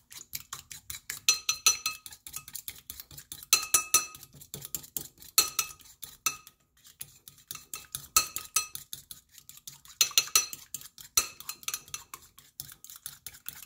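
A fork beating an egg and cheese mixture in a cut-glass bowl: rapid clicks of the fork against the glass, with the bowl ringing on the harder strokes, in spells with short breaks.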